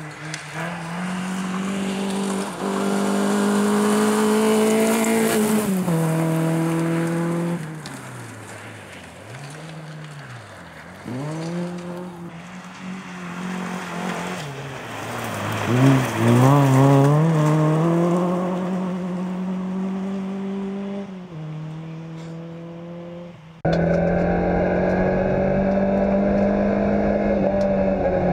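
Fiat Cinquecento rally car engine heard from inside the car, revving up and dropping back repeatedly as the driver shifts gears and lifts off, with tyre noise under it. About 23 seconds in, the sound changes abruptly to a louder, rougher engine note held nearly steady.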